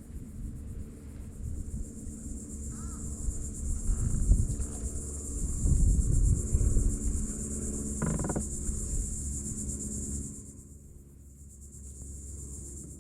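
Insects buzzing steadily in a high, even drone, with a low rumble underneath that drops away about ten seconds in.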